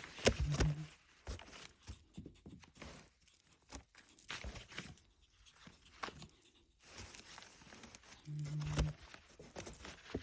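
Pet ferret giggling: irregular short, breathy open-mouthed gasps and huffs, mixed with light scuffling. A brief low buzzing tone sounds about half a second in and again, louder, near the end.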